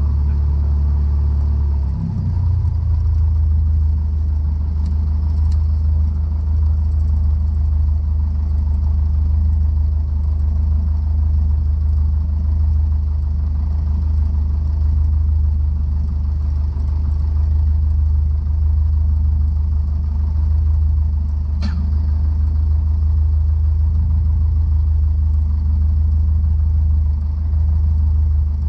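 Cessna 152's four-cylinder Lycoming engine and propeller running at low taxi power, a steady low drone. The engine note shifts down slightly about two seconds in, and a single short click comes about three quarters of the way through.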